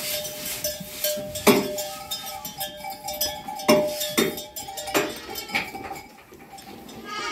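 Sharp metal clanks and knocks, about five of them spread over a few seconds, among sheep in a pen, over a steady held tone that fades out about halfway through.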